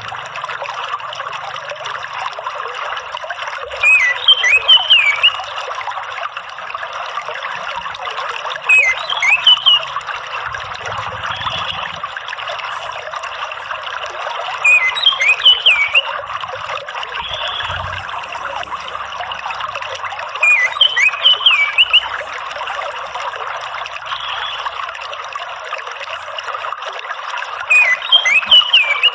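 Steady trickling water with an orange-headed thrush calling over it. The thrush gives a short phrase of quick rising and falling notes about every six seconds, five times.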